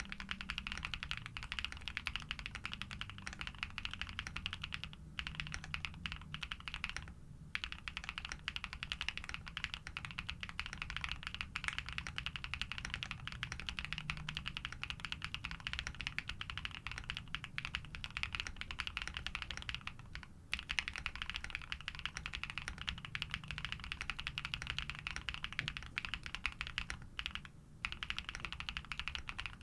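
Continuous fast typing on a custom Neo80 v2 mechanical keyboard with Krytox-lubed Pado v2 switches, a polycarbonate plate, PBT keycaps and full foam. Dense key strokes with a few brief pauses.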